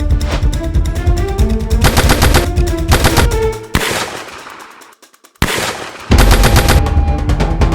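Rapid automatic gunfire over dramatic film music. The firing breaks off and dies away about four seconds in, then starts again heavily about a second and a half later.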